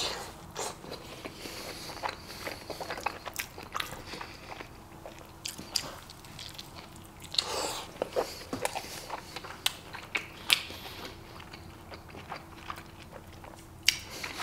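Barbacoa burrito being bitten and chewed close to the microphone, with irregular mouth clicks and soft crunches.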